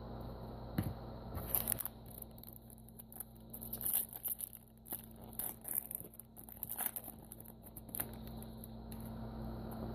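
A foil trading-card pack being torn open and its wrapper crinkled: a run of irregular crackles and small clicks over a steady low mains hum.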